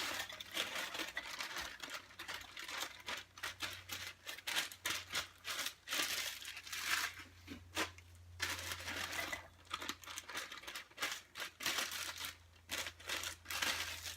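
Plastic bag of frozen vegetables crinkling and rustling as the vegetables are shaken out into a slow cooker, in uneven stretches with short pauses.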